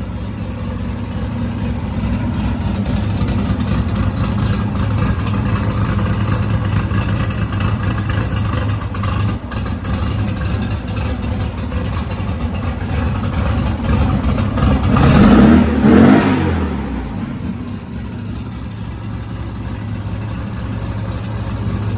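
Turbocharged 1600 air-cooled VW Beetle engine idling steadily, revved once about 15 seconds in, then settling back to idle.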